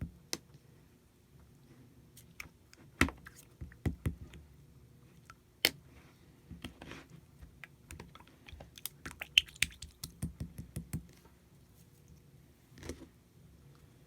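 Slime being squished and poked by hand, making irregular sticky clicks and pops, with a few sharper snaps standing out.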